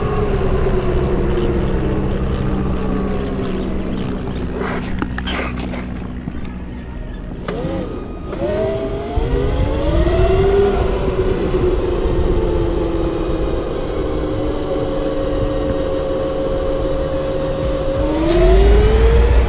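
Whine of a 72 V, 3000 W electric motor and its drivetrain on a converted Razor MX650 pit bike under way: the pitch falls steadily as the bike slows, cuts out briefly, climbs again about eight seconds in, holds level, then rises once more near the end. Wind rumbles on the microphone throughout, much stronger in the last two seconds.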